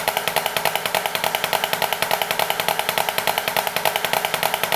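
Drumsticks on a practice pad playing the Swiss Army Triplet rudiment: a fast, steady stream of flams and taps in a triplet rhythm.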